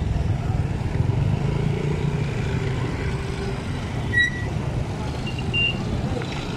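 Street traffic: motor vehicles running with a steady low rumble, and a few brief high-pitched tones, the clearest about four seconds in.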